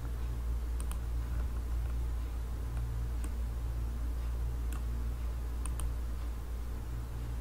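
Computer mouse clicking a few times, sparse single and double clicks, over a steady low hum.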